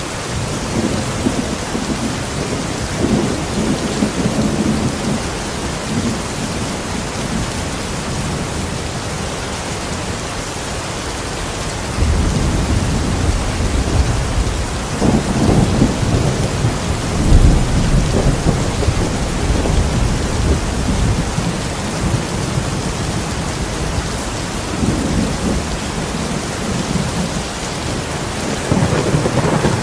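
Steady rain with rumbles of thunder. A long, deep roll of thunder starts about twelve seconds in and peaks a few seconds later, with weaker rumbles near the start and again near the end.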